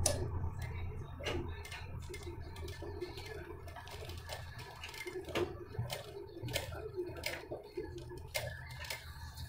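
Domestic sewing machine stitching slowly along the zip edge of a blouse: irregular clicks from the needle mechanism over a low steady hum.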